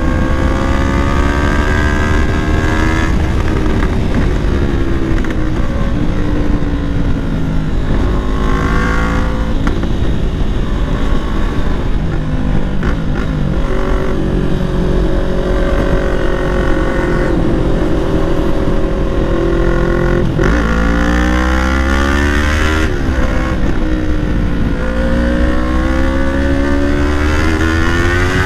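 Yamaha R3's 321 cc parallel-twin engine through a Leo Vince full-system exhaust, heard from the rider's seat while riding. The revs climb and drop with gear changes, hold fairly steady through a long cruising stretch in the middle, then climb and drop through the gears again near the end.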